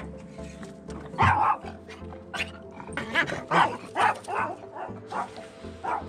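A small dog barking several times in short separate barks, over background music.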